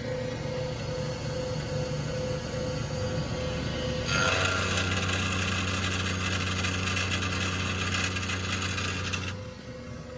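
CNC-converted milling machine running under program, cutting splines into a shaft: a steady machine hum at first, then from about four seconds in the cutter bites into the metal with a louder, harsh cutting noise for about five seconds, which stops shortly before the end.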